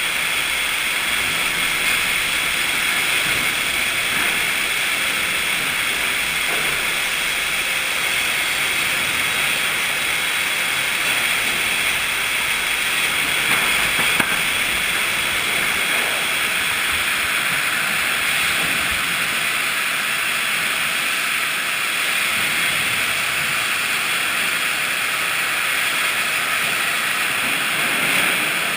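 Sawmill machinery running: a steady, loud, hiss-like noise, with a couple of faint knocks about halfway through.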